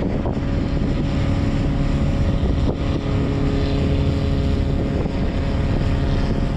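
Boat engine running with a steady drone, with wind on the microphone.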